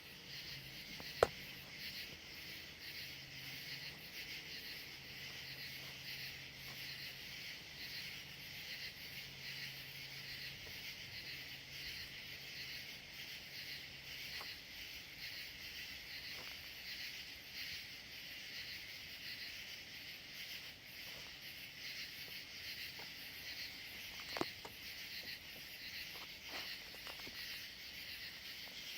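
A steady, dense chorus of insects such as crickets, chirring without a break. A sharp click sounds about a second in and another near the end, and a faint low hum fades out about halfway through.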